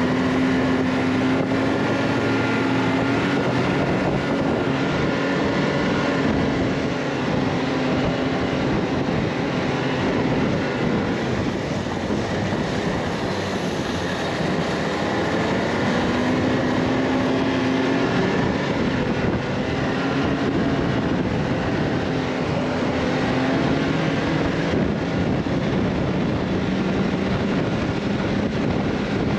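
A vehicle's engine running steadily while under way, its pitch drifting up and down a little, with wind noise rushing over the microphone.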